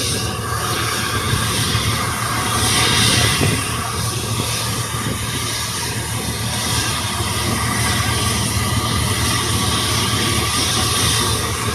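PD-35 high-bypass turbofan engine running steadily during a test run: a continuous rushing jet noise over a low hum, swelling slightly about three seconds in.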